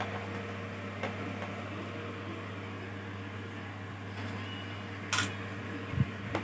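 Small clicks and a short scrape as screws are taken out of a laptop's bottom panel with a screwdriver, with a soft knock near the end, over a steady low electrical hum.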